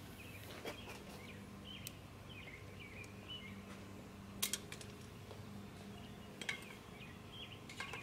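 Birds chirping over and over in the background, with a few sharp clicks and taps as a small TPMS valve-stem sensor is handled and fitted to the wheel rim. The loudest click comes about halfway through.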